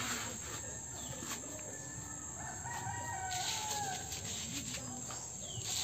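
A faint rooster crow about two and a half seconds in, one drawn-out call that falls in pitch at its end, over a steady high-pitched insect buzz.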